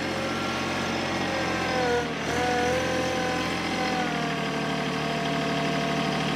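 TYM T264 compact tractor's three-cylinder diesel engine running steadily, its pitch dipping briefly about two seconds in and shifting a little near four seconds as the hydraulics load it while the front-loader grapple is closed.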